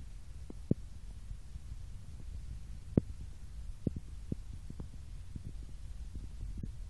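Low rumble on a hand-held cell phone's microphone, with scattered soft thumps and one sharper knock about three seconds in.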